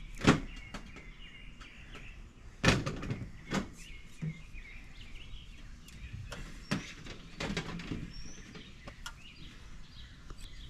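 A handful of sharp knocks from work on the gutter being fitted and pushed into line, the loudest about two and a half seconds in, with birds chirping faintly throughout.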